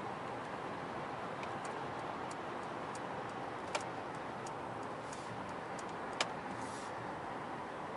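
Steady road and tyre noise inside the cabin of a Mercedes S500 at motorway speed, with faint regular ticks about every 0.7 s and two sharper clicks, a little under four and a little over six seconds in.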